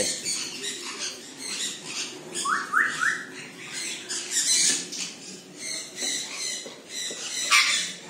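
A flock of sun conures chattering with many short, shrill, high-pitched calls, including three quick rising calls about two and a half seconds in.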